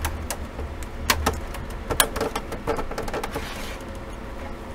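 Plastic clips of a Dell Inspiron 3475 all-in-one's back cover clicking and snapping as they are pried loose from the latches, a handful of sharp clicks over low handling rumble, thinning out after about three seconds.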